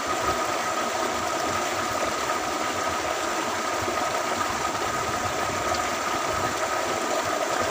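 Steady rush of water from a small waterfall pouring over rocks into a stream pool, with a faint steady high tone running under it.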